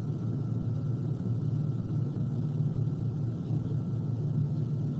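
Steady low background rumble with a faint, thin high whine held steady above it.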